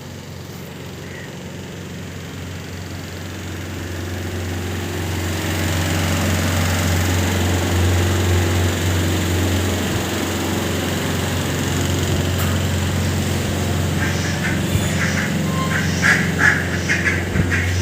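A steady low mechanical hum, like an engine running, grows louder over the first several seconds. From about three-quarters of the way in, rapid short animal calls come several times a second.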